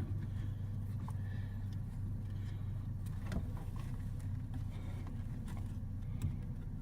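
Steady low hum of the minivan's engine idling, with a few faint clicks and taps of plastic steering-column parts being handled.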